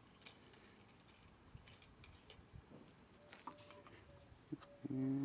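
Faint light clicks and taps of thin tungsten electrode rods being set down and arranged on a stone surface. A brief low voice-like sound comes near the end.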